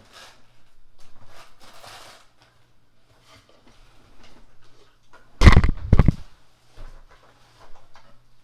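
Handling of a portable massage chair's parts and packaging: rustling and small clicks, with a brief loud clatter of several knocks about five and a half seconds in.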